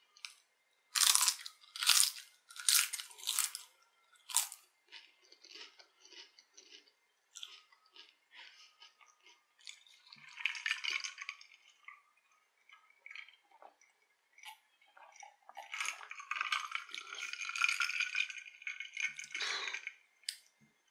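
Close-up crunching of a crisp cassava chip: five loud crunching bites in the first few seconds, then quieter chewing with small crackles. Later comes a longer stretch of crackling crunching noise lasting a few seconds.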